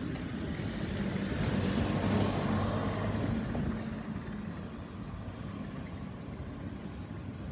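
A motor vehicle passing by: its engine noise grows louder over the first two seconds, peaks with a steady low hum, then fades back into a steady background rumble.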